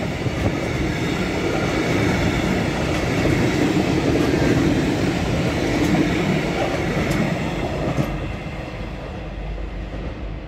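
Freight train of empty flat wagons rolling past, a steady rumble and clatter of wheels on the rails with a few sharp clicks. The sound fades in the last couple of seconds as the end of the train moves away.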